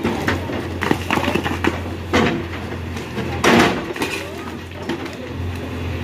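JCB backhoe loader's diesel engine running steadily while its bucket breaks off a concrete slab, with crunching impacts of concrete and brick about a second in, at about two seconds, and the loudest near three and a half seconds.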